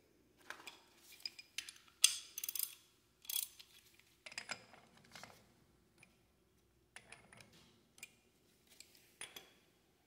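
Irregular metallic clicks and clinks of a socket wrench on the front wheel hub's castle nut, some in quick clusters, as the wheel-bearing preload is set before the cotter pin goes in.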